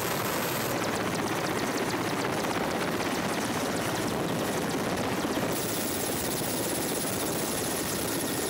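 A Mi-17-type twin-turbine military transport helicopter running close by with its rotors turning: a steady rush of rotor wash and turbine noise with a thin high whine above it.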